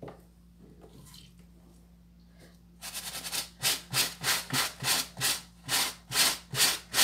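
Small stiff plastic scrub brush scrubbing a detergent-wetted cotton shirt in quick back-and-forth strokes, about three a second, starting about three seconds in. The brush is working detergent into the underarm fabric to soften dried deodorant residue.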